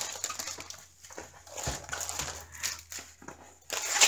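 Clear plastic wrapping crinkling and a paper-backed diamond painting canvas rustling and sliding under hands, in irregular scrapes and crackles.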